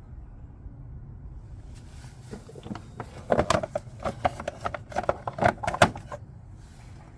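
A quick run of sharp clicks and clatters from hand tools and parts being handled during the battery change, starting about two seconds in and stopping about a second before the end.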